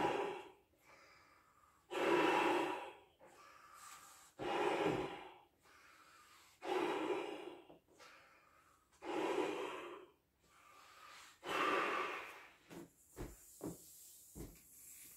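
A man inflating a 24-inch Belbal latex balloon by lung power: six heavy breaths, one about every two and a half seconds, between blows into the balloon. Near the end the breathing stops and a few light knocks come from his hands on the balloon.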